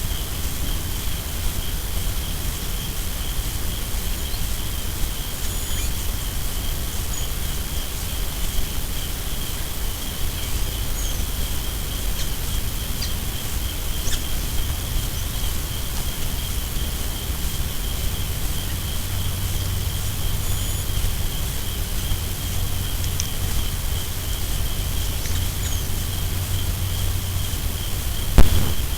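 Steady, unbroken high-pitched insect trill, with a low rumble underneath and a few faint short chirps. A sharp knock sounds just before the end.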